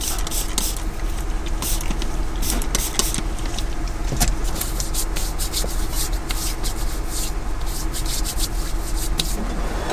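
Irregular rustling and rubbing close to the microphone, over a car engine idling steadily inside the cabin.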